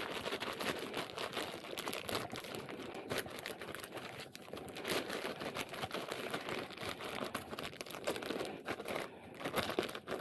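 Plastic bag crinkling and rustling continuously, with many small crackles, as it is rubbed down with a disinfectant wipe.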